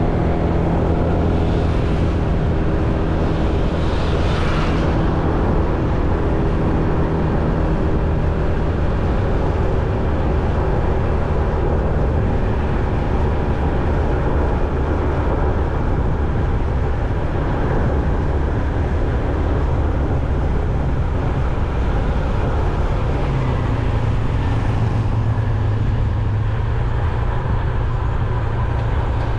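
A motor vehicle's engine running steadily under road noise. Its low hum steps to a different pitch about two-thirds of the way through, and a brief rush of noise comes about four seconds in.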